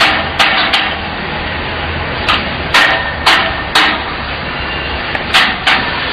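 Sharp metal knocks, about nine in uneven groups with a brief ring, as idler rollers are fitted into the brackets of a steel belt-conveyor frame.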